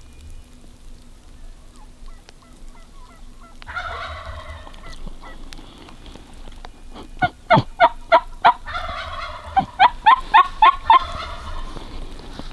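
Wild turkey gobbling twice, about four seconds in and again about nine seconds in. Between the gobbles and over the second one comes a quick run of loud, sharp yelp-like notes, about five a second.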